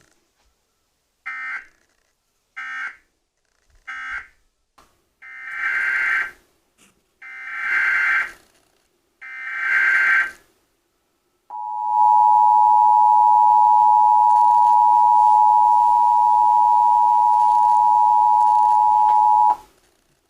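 Emergency Alert System tones. First come three short warbling digital data bursts, the end-of-message code closing the previous warning. Then three longer data bursts, the header of the next warning. Then the loud, steady two-tone EAS attention signal (853 and 960 Hz), held for about eight seconds before it cuts off.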